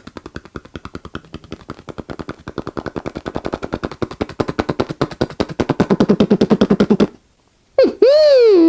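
Vocal imitation of machine-gun fire made with the mouth: a rapid, even rattle of about ten shots a second that grows louder and stops suddenly after about seven seconds. After a brief pause, a mouth-made siren wail starts near the end, dipping and then rising in pitch.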